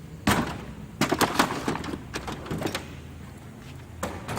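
Metal tool chest drawers and the tools in them being handled: a run of sharp metal knocks and clunks, one near the start, a cluster about a second in, and another single clunk about four seconds in.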